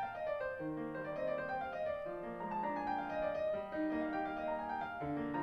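Background music: a gentle piano tune playing single notes.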